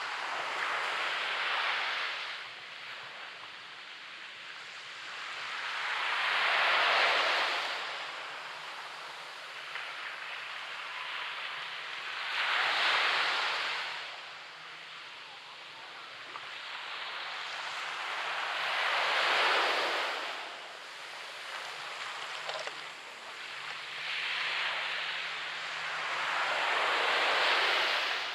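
Waves breaking on a beach, the surf swelling up and washing back down about every six seconds, five times over.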